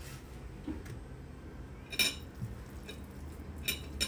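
Kitchen dishes and utensils clinking on the counter: one sharp clink about two seconds in, then two lighter ones near the end.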